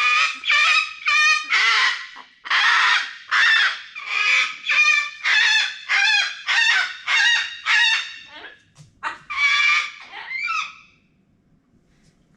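Pet cockatoo giving a rapid series of loud, harsh squawks, about two a second, which stop about eleven seconds in.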